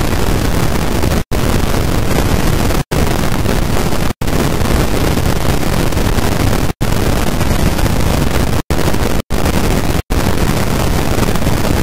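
Loud, steady static-like noise spread across all pitches, with no tones or events in it, broken by about seven brief total dropouts at irregular times.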